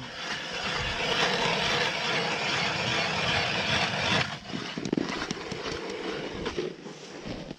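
Petrol motor ice auger running while drilling through lake ice, loud and steady for about four seconds, then easing off.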